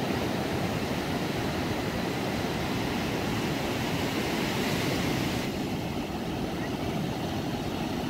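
Ocean surf washing up a sandy beach: a steady rushing noise with a deep rumble under it. The higher hiss thins out suddenly a little past halfway.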